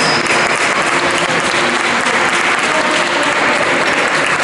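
Steady clapping and crowd noise from spectators and the team benches at a basketball game.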